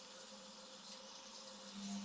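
Indesit washing machine running in its rinse cycle: a faint steady hum over a light hiss, which steps up louder just before the end.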